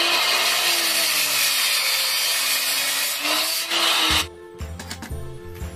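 A Makita circular saw running and cutting through a wooden board, its motor pitch dipping and recovering as the blade bites. The saw sound cuts off suddenly about four seconds in, and background music with a steady beat follows.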